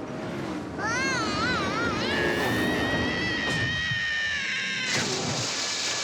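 A cartoon character's high-pitched wailing cry. It wobbles up and down for about a second, then stretches into a long held note that breaks off about five seconds in, giving way to a rushing hiss.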